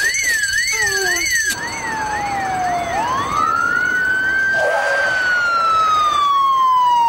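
Police car's electronic siren. A fast warble stops about a second and a half in, and a slow wail follows: it dips, sweeps up, then falls away slowly.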